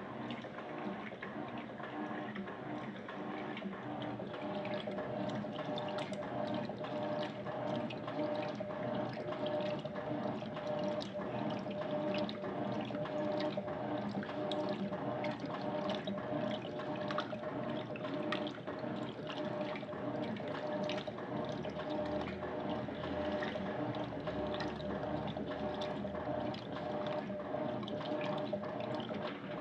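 Electrolux LTC10 washing machine running with water: steady rushing and splashing of water inside the machine. A steady hum comes in a few seconds in.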